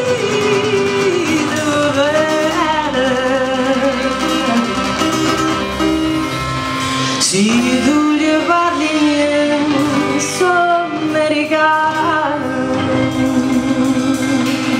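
Live band music: a woman singing a melody over strummed acoustic guitar and a drum kit, with a few cymbal hits.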